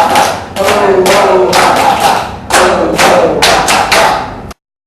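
Laughter yoga group doing the washing machine laugh: many voices laughing and shouting loudly together in repeated bursts, each falling in pitch. It cuts off abruptly near the end.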